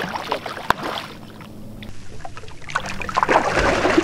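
Hooked snook thrashing and splashing at the water's surface: a sharp splash right at the start, then a longer, louder spell of splashing near the end.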